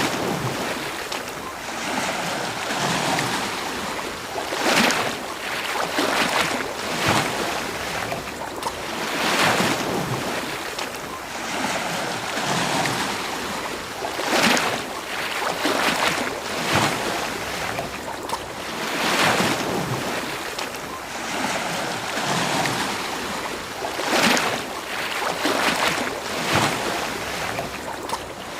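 Ocean waves washing onto a beach: a steady surf hiss with swells that crest and fall back every few seconds.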